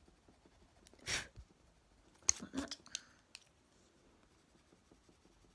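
Faint handling of wooden coloured pencils as one is put down and another picked up: a short rustle about a second in, then a cluster of light clicks a little later.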